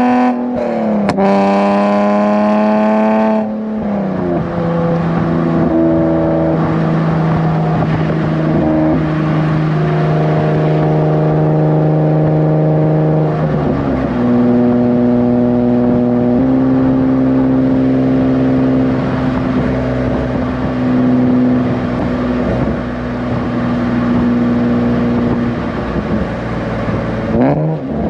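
Nissan 370Z's 3.7-litre V6 with PPE headers, heard from inside the car: it pulls up through the revs and drops pitch twice in the first few seconds, as at two upshifts, then cruises at steady, lower revs. Near the end there is a quick rise and fall in revs.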